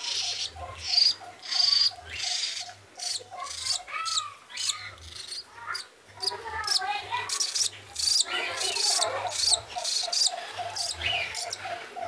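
Parrot nestling giving repeated short, raspy begging calls while held in the hand, over a steady fast ticking like a cricket.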